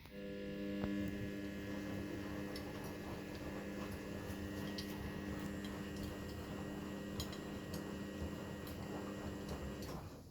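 Continental Edison washing machine's drum motor running with a steady hum as it turns the drum gently in a 60 °C wash, with light scattered ticks. It starts sharply at the beginning and stops shortly before the end, one stroke of the wash cycle's back-and-forth tumbling.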